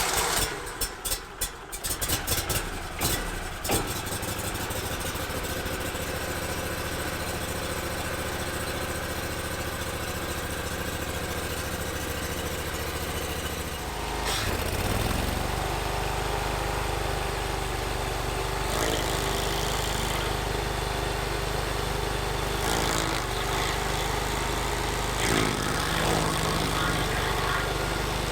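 Gasoline engine of a Vermeer SC362 stump grinder starting up, running unevenly for the first few seconds before settling into a steady idle. About 14 seconds in the engine speeds up and runs on louder at a higher steady speed.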